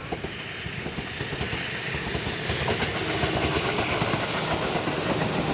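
Tobu electric train running past on the Nikko line. Its rolling noise grows steadily louder, with wheels clacking over the rail joints and a steady hum that comes in about halfway.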